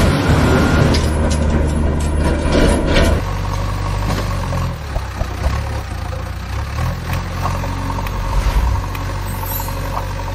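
Heavy engine sound idling, louder and rougher for about the first three seconds, then settling to a steadier, quieter idle with a few light clicks.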